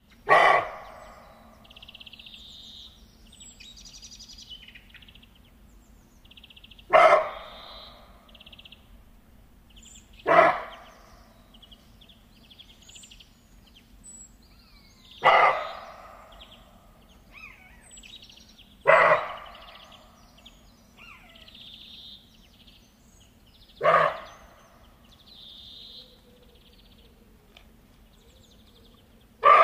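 An animal giving short, sharp barks, seven in all and spaced a few seconds apart, each dying away quickly. Faint bird chirps sound between the barks.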